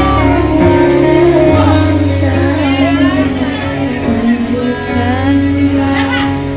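Music: a song with a sung melody over sustained bass notes.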